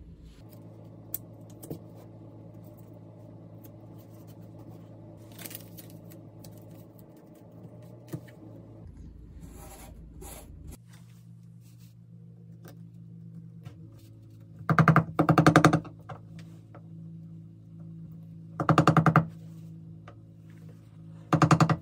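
Blue painter's tape being pulled off the roll in three short rasping rips, the first about a second long, over a steady low hum.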